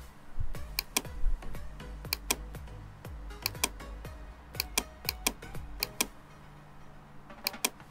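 Computer mouse and keyboard clicking. Sharp clicks come at irregular intervals, many in quick pairs like double-clicks, as curves are selected and reversed in CAD software. The clicks pause for about a second and a half, then two more come near the end.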